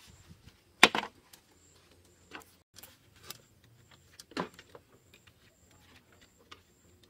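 Sharp knocks and clicks of bamboo pieces handled on a slatted bamboo table: a loud knock about a second in, a duller one a little past the middle, and scattered light ticks.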